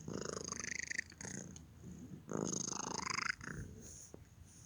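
Domestic cat making two odd, alien-sounding calls: a short one at the start and a longer one about two seconds in, each pulsing rapidly and rising in pitch.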